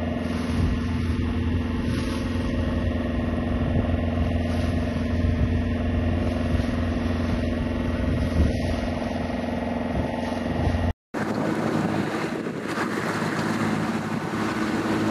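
Boat engine running steadily: a low, even hum. About eleven seconds in, the sound cuts out for a moment and a different engine hum takes over, mixed with wind and water noise.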